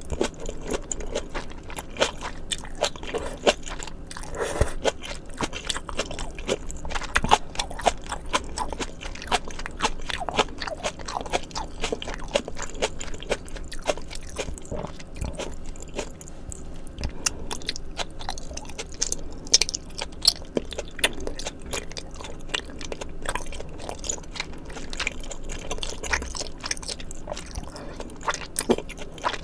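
Close-miked chewing and biting of maratang, the spicy Sichuan soup: a dense, irregular run of small wet and crunchy mouth clicks.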